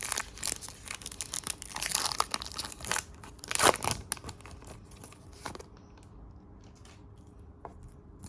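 Trading-card pack wrapper being torn open and crinkled in the hands, with the loudest rip about three and a half seconds in. After about five and a half seconds only a few faint handling clicks remain.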